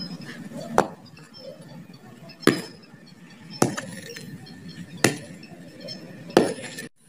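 Five sharp clinks of something hard being struck, about one every second and a half.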